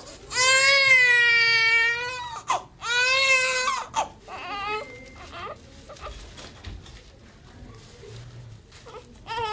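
Newborn baby crying: two long wails in the first four seconds, then a few short whimpers, and a fresh cry starting near the end.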